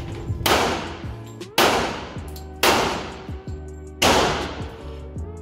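Four pistol shots from a .45-calibre M1911, about a second apart, each ringing out in the reverberation of an indoor range. Background music plays underneath.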